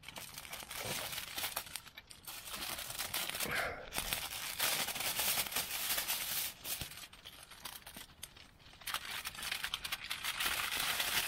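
Aluminium foil crinkling and rustling as a parcel of seasoned meat is folded up in it for baking in the coals: a dense run of small crackles, with a quieter lull about eight seconds in.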